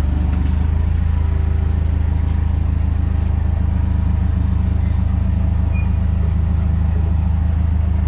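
Forklift engine running steadily with a deep, even drone as the truck manoeuvres with a load of glass on its mast.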